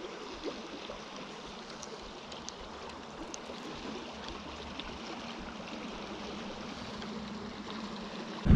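River current flowing steadily over shallow riffles, an even rush of water with a few faint clicks scattered through it. It cuts off abruptly into much louder vehicle noise at the very end.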